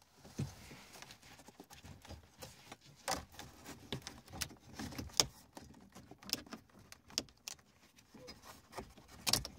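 Volvo 940 instrument cluster being worked out of the dashboard by hand: faint, irregular clicks and knocks, the sharpest about three, five and nine seconds in.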